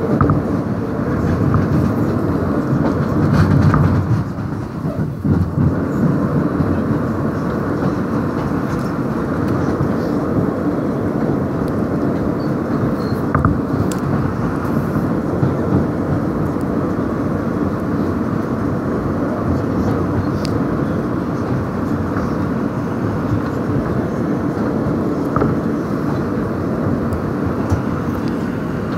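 Running noise of an R160 subway car heard from inside at speed: a steady rumble of wheels on the rails, briefly louder about three to four seconds in.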